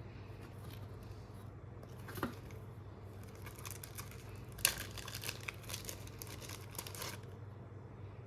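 Gaming mouse packaging being handled and opened: crinkling and rustling, with a dense run of crackles and snaps in the middle and the sharpest snap just before the midpoint.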